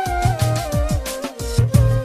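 Background music with a steady drum beat, low sliding bass notes and a lead melody that steps downward.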